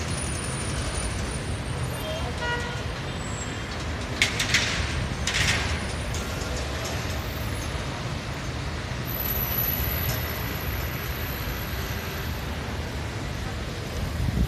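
Steady hum of distant city traffic, with a short horn toot about two seconds in and two brief bursts of hiss around four and five seconds.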